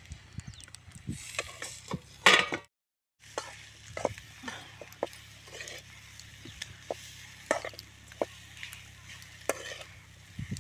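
Metal spoon stirring boti fry in a metal pan over a wood fire, scraping and knocking against the pan in short irregular strokes, with a faint sizzle of the frying meat underneath. The sound cuts out completely for about half a second near the three-second mark.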